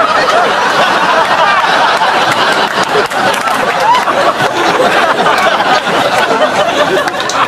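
Studio audience laughing, a long unbroken wave of laughter from many people.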